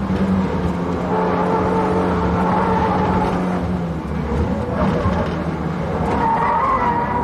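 Subaru Impreza WRX STI's turbocharged flat-four engine pulling hard at high revs on a flying lap. It dips briefly about four seconds in, like a lift or gear change, then pulls again with the pitch edging up near the end.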